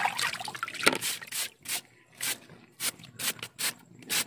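Shallow water splashing and dripping in short, irregular bursts as hands rinse a crab and scrub it with a plastic brush.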